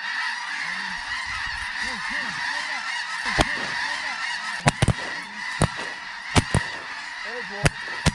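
A large flock of snow geese calling overhead, a dense, steady chorus of honks. From about three seconds in, several sharp clicks or knocks cut through it.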